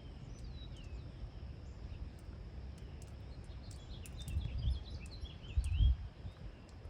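Small birds chirping in short, scattered calls over a steady low rumble of wind on the microphone, with two stronger gusts or bumps a little after the middle.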